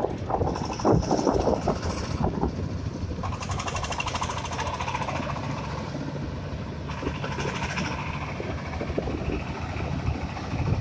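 Engine of a self-propelled corn sheller running at road speed, with a fast, even knock. Two stretches of hiss join it, about three seconds in and again near eight seconds.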